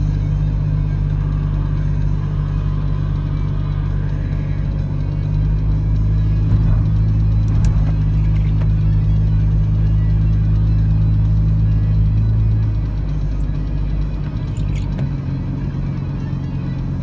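Steady low drone of a car's engine and tyres heard from inside the cabin while driving, easing off about 13 seconds in. A windshield wiper sweeps across the glass about eight seconds in.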